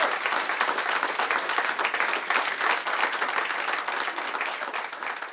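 Audience applauding, many people clapping at once, fading out near the end.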